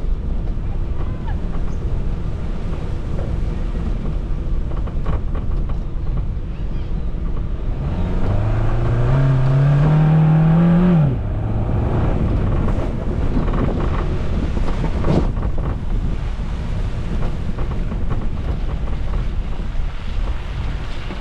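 Suzuki Jimny engine driving off-road over a steady rumble, with wind buffeting the microphone. About eight seconds in, the engine revs up for about three seconds, its pitch climbing, then drops off abruptly.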